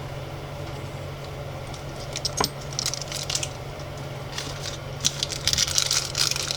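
Small Monopoly game tokens and their little plastic packets being handled: light clicks and taps, one sharp tap about two and a half seconds in, and crinkling near the end, over a steady low hum.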